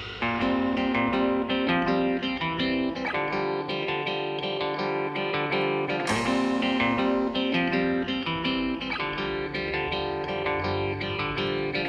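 Background music: a guitar piece of plucked notes.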